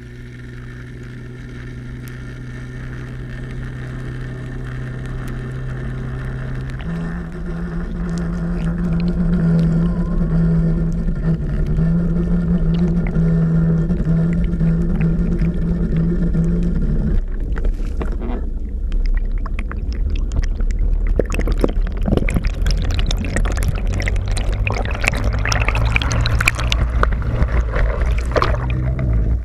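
Underwater sound picked up through a GoPro's housing as a basket-fishing rig is hauled toward the surface. A steady low hum steps up in pitch about seven seconds in and stops about seventeen seconds in. After that, water rushes and crackles past the housing, and it splashes as the camera breaks the surface near the end.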